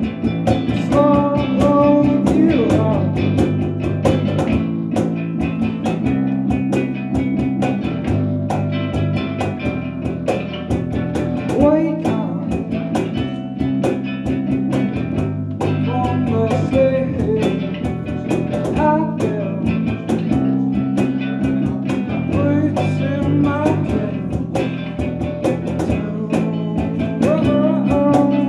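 Small rock band playing live: a man sings a bluesy melody into a microphone over strummed acoustic guitar and electric guitar chords.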